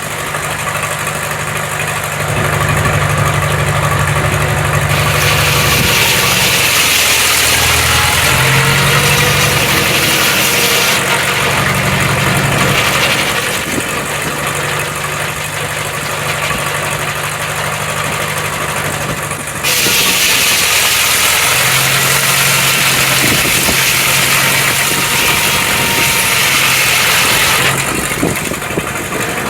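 Sawmill engine running steadily, with the saw cutting through wood in two long passes. The first pass starts about five seconds in, the second about twenty seconds in, and the engine note sags under the load of the cut.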